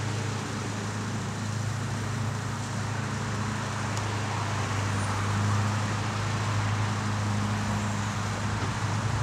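Steady outdoor background rumble with a low hum, like distant road traffic; the knife being stropped on leather is at most faint beneath it.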